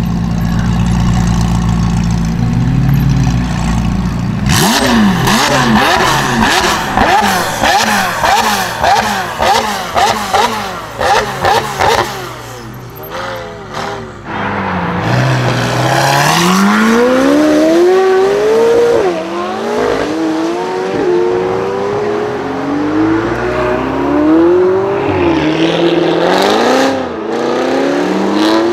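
The twin-turbo V8 of a Novitec-tuned McLaren 720S rumbles at low revs, then from about four seconds in revs hard in quick, repeated rises and falls. In the second half a high-performance car engine accelerates through the gears, its pitch climbing and dropping back at each of several upshifts.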